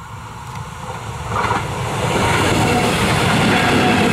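Deutsche Bahn Regional-Express of double-deck coaches hauled by a class 146 electric locomotive approaching and passing close by. It grows loud from about a second and a half in, then holds a steady rush of wheels on rails.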